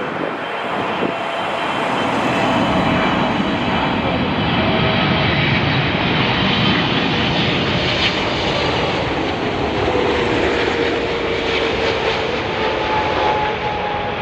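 Boeing 777-300ER's twin GE90 jet engines on landing: a loud, steady jet rush with faint whining tones that slide lower in pitch in the second half as the airliner goes by.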